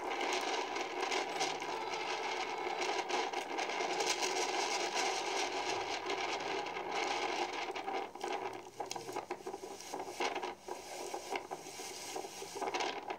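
Rushing storm noise from tornado footage playing through a laptop speaker. Steady for about eight seconds, then breaking into scattered crackles and clicks.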